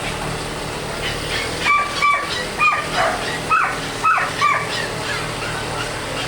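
A dog barking about seven times in quick, high-pitched barks in the middle of the stretch, over a steady loud hiss-like background noise.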